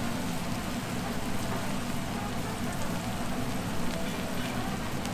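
Crumbed chicken strips sizzling in the hot oil of a deep fryer, a steady crackling hiss, with a low steady hum beneath.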